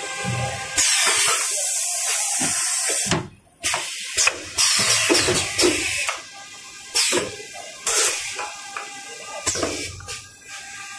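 Tissue paper converting machinery running, with a steady whine underneath and repeated loud bursts of hissing air at irregular intervals.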